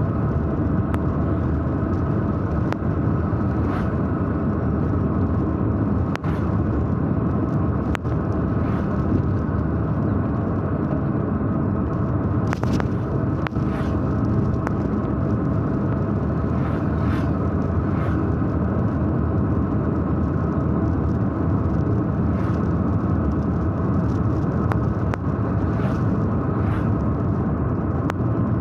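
Steady engine and road noise of a car on the move, heard from inside the cabin, with occasional light clicks and knocks.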